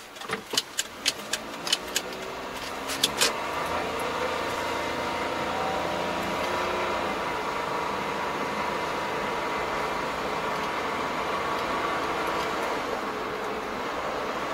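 Car engine and road noise heard from inside the cabin while driving: the engine note rises as the car gathers speed, then settles into a steady drone. A string of sharp clicks comes in the first three seconds.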